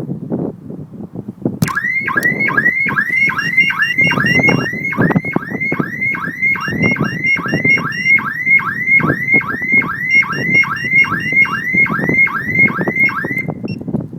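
Car security system's 'Hollywood Sound' siren going off: a loud whoop that sweeps up quickly about three times a second, with a steady higher tone joining in for stretches. It starts a couple of seconds in and cuts off shortly before the end.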